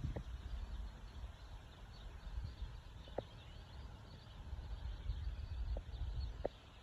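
Faint birdsong in the background over a low, uneven rumble, with a few short, sharp pips about three seconds in and again near the end.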